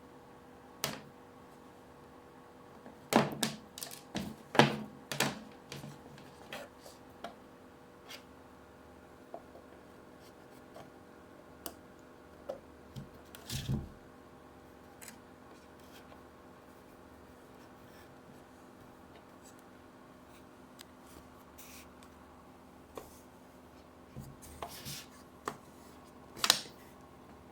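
Scattered clicks, knocks and short rustles of a rechargeable lamp and its packaging being handled during unboxing. They come in three clusters with a quieter gap in the middle, over a faint steady electrical hum.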